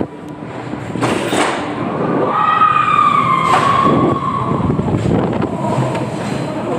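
Maurer Söhne spinning roller coaster car running along its track: a steady rumble with rattling clicks from the wheels. About two seconds in, a long high tone falling slightly in pitch rises over it for about two seconds.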